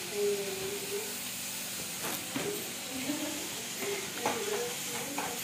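Chitrannam seasoning of onions, chillies and tamarind water sizzling in a pan while being stirred. There is a steady frying hiss, with a few knocks of the spoon against the pan about two seconds in and again after four seconds.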